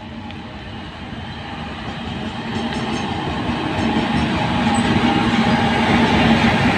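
Indian Railways WAG-9-class electric freight locomotives hauling a loaded goods train approach and pass, a steady electric hum over the rumble of wheels on rail, growing steadily louder as they draw near.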